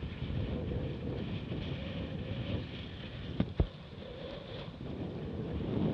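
Wind buffeting the microphone over water rushing and splashing along a Laser Radial dinghy's hull, with two sharp knocks in quick succession about three and a half seconds in.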